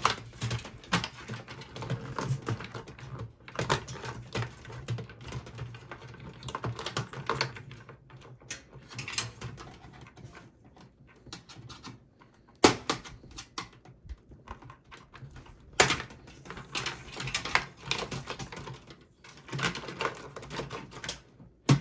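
Irregular clicking, rattling and rustling as internal cables and plastic connectors are unplugged and pulled free inside a desktop PC's steel case. A few sharper snaps stand out, the loudest about halfway through.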